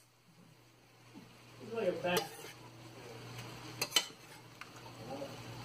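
Metal spatula and fork clinking and scraping against a stainless steel frying pan as glass noodles and vegetables are tossed, with sharp clinks about two and four seconds in.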